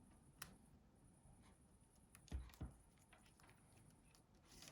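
Near silence with a few faint clicks of small plastic phone parts being handled: one tap about half a second in and two soft knocks a little past two seconds.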